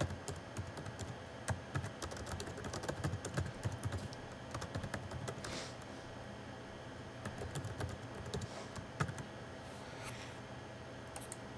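Typing on a computer keyboard: quick runs of key clicks for about five seconds, a short pause, then another shorter run of typing before it tails off to a few scattered clicks.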